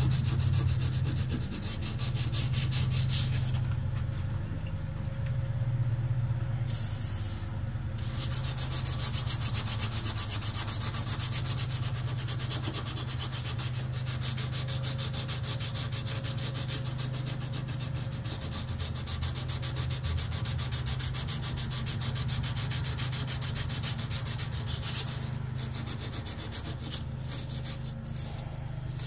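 Sandpaper rubbing steadily along the steel blade of a KA-BAR knife as it is hand-sanded in dense, continuous strokes. A steady low hum runs underneath.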